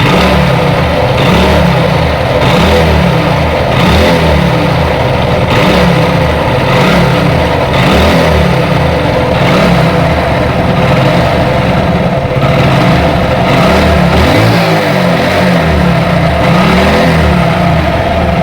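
Hero Super Splendor's 125 cc single-cylinder engine running with an abnormal mechanical noise, surging in a regular rhythm about every second and a half. The mechanic attributes the noise to a worn-out crank assembly, with the clutch housing also making noise.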